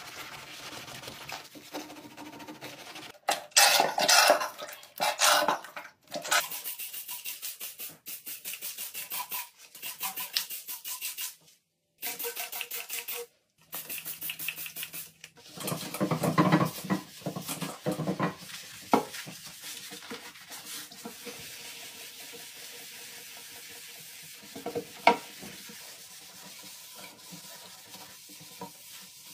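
A sponge scrubbing and wiping white ceramic bathroom fixtures, a sink and a toilet, in a string of short clips with abrupt cuts between them.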